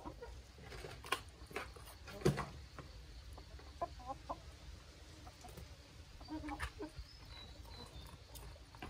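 Domestic chickens clucking softly while feeding, with scattered sharp taps of beaks pecking at a feed basin, the loudest about two seconds in.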